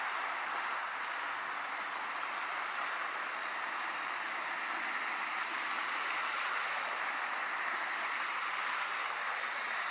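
Steady rain falling, an even hiss with no distinct drops or other events standing out.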